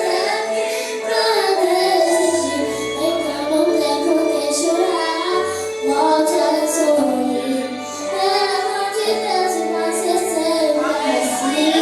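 A worship song: a high voice sings a melody over held chords and low bass notes that change every second or two.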